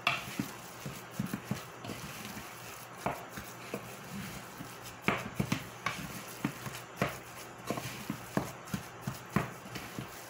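A wooden spoon mixing ground beef and breadcrumbs in a bowl: irregular knocks and scrapes of the spoon against the bowl, one or two a second, over a faint low hum.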